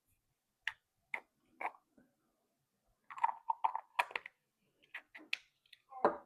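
Small 3D-printed plastic dragon eggs and bendy dragon toys being handled and worked open: light plastic clicks, three single ones first, then a quick run of clicking and rattling about three seconds in, with a few more near the end.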